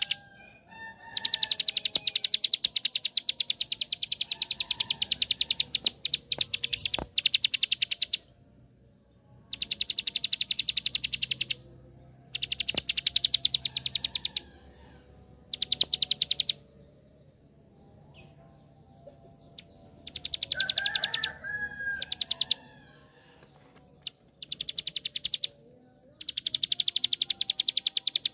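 Plain prinia (ciblek sawah) singing its rapid-fire 'ngebren' song: about seven bursts of a fast, high trill with short pauses between. The first burst runs about seven seconds and the later ones a second or two each.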